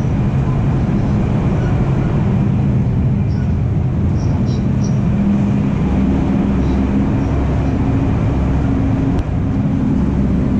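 A Shinkansen bullet train running: a steady rumble with a low hum that moves up in pitch about six seconds in.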